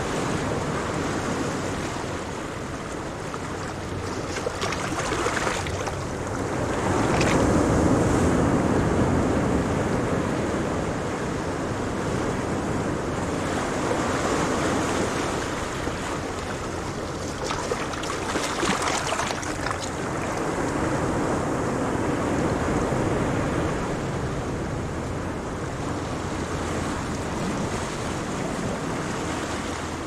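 Ocean surf: waves breaking in a continuous rush of water that swells as each breaker comes in, loudest about a quarter of the way in and again just past the middle.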